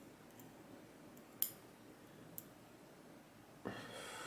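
A few faint, sharp metal clicks of tweezers and small lock parts: a spring-loaded slider being worked out of a dimple lock's core, with the clearest click about a second and a half in.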